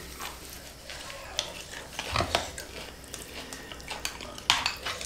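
Plastic spoons scraping and clinking against a glass bowl and a metal tray during a meal of fried noodles, with a few sharper clinks, the loudest about two and four and a half seconds in.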